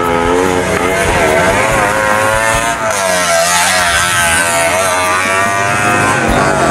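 Auto-rickshaw engines revving, their pitch rising and falling continuously.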